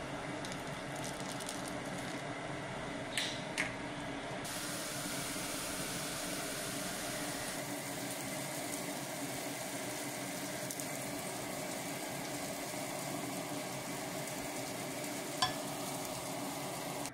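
Rice cooking in tomato broth in a pan: a steady sizzling, bubbling hiss. A couple of sharp clicks come about three seconds in and another near the end.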